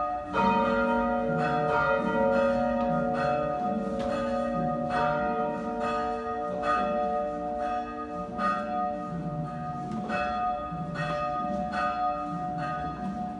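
Church bells tolling a funeral knell for the dead: several bells of different pitch struck over and over, each tone ringing on and overlapping the next.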